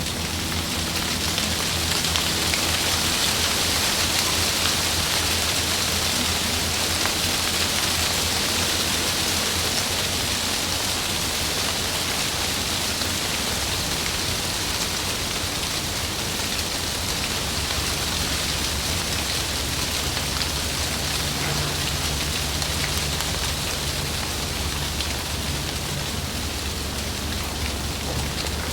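Steady heavy rain pattering on tree leaves, a dense even hiss with fine drop ticks over a low rumble of wind.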